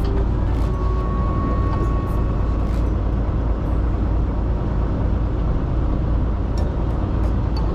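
Steady low rumble of a fishing boat's engine running at idle.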